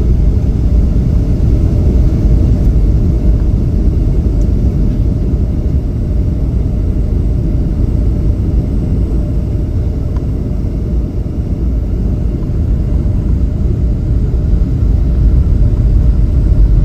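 Steady, loud low rumble of engine and airflow noise heard inside an airliner cabin in flight.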